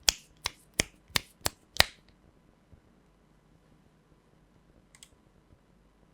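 Keystrokes on a Swagkeys Eave 65 gasket-mounted mechanical keyboard with HMX Xinhai switches, PC plate and ABS doubleshot keycaps: six single sharp clacks about a third of a second apart, then a pause with one faint, quick clatter about five seconds in.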